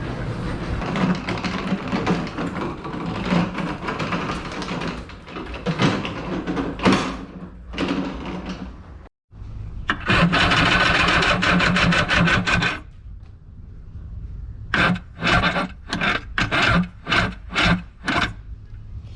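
Electric starter of a 1990 Kawasaki 650SX jet ski cranking the engine without it catching: one long crank of about three seconds, then a run of short stabs on the starter. The battery may be weak.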